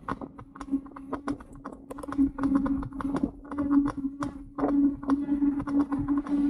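Engwe Engine Pro e-bike on the move: fast, irregular rattling and knocking over a steady hum, which gets louder a little past halfway.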